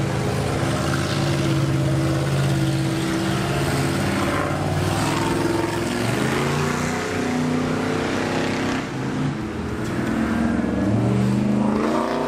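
Car engines running and revving, their pitch rising and falling, with one rev climbing near the end.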